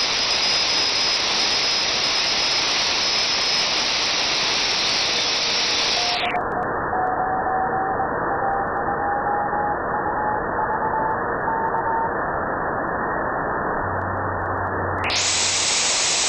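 Steady hiss from a NooElec NESDR (RTL-SDR) receiver demodulating the 2 m amateur band in upper sideband. A faint, broken whistle of a weak carrier slowly rises in pitch in the middle. About six seconds in, the hiss turns duller as the receive filter is narrowed, and it brightens again near the end when the filter is widened.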